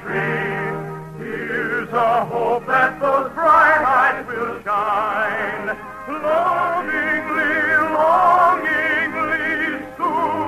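Operetta singing with a strong vibrato over orchestral accompaniment, sung in phrases.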